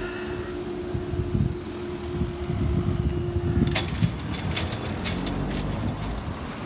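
Level-crossing barrier motor running with a steady hum as the boom finishes rising, cutting off sharply about four seconds in. A quick run of clicks and knocks follows, over a low rumble of road vehicles.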